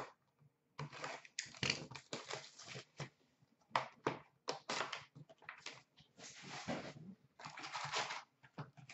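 A 19-20 Upper Deck SP Authentic hockey hobby box being torn open by hand and its wrapped card packs pulled out: irregular crinkling, rustling and tearing of cardboard and pack wrappers, with a couple of longer tearing rustles in the second half.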